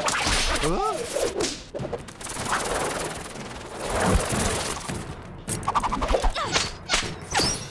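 Cartoon fight sound effects: a long whooshing swish as a whip is spun, then a rapid run of sharp whip cracks and hits near the end.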